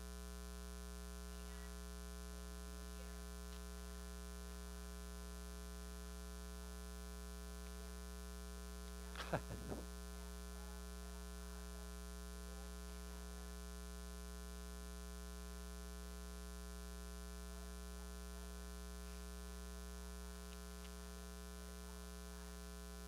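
Steady electrical mains hum, a buzz made of many evenly spaced overtones, with a brief voice-like sound about nine seconds in. The hum gets slightly quieter about twenty seconds in.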